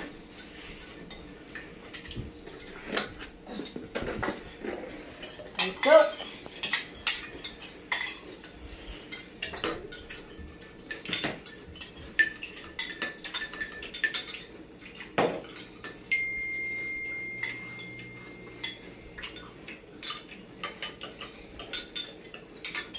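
Metal spoons clinking and scraping irregularly against small bowls of cereal and milk as several people eat, the loudest clink about six seconds in. A steady high tone sounds for about three seconds past the middle.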